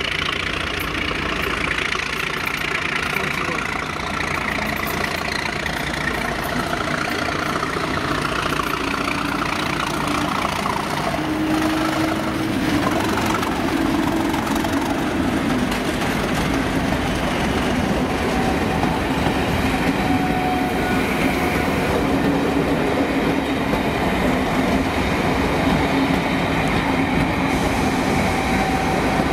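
Colas Rail Class 37 diesel locomotive's engine running as it hauls a rake of coaches past at low speed, with wheels rolling on the rails. The engine note grows louder about twelve seconds in as the locomotive draws level.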